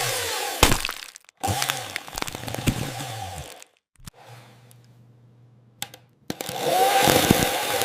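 AI-generated chainsaw sound: a chainsaw motor running with wavering pitch and crackling as it cuts into a sweet. It cuts off abruptly twice. A quieter stretch with a steady low hum follows before the saw starts running again about six seconds in.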